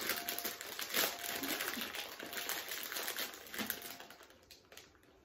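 Plastic snack bag of Monster Munch crisps crinkling as it is handled and torn open, the rustle fading out about four seconds in.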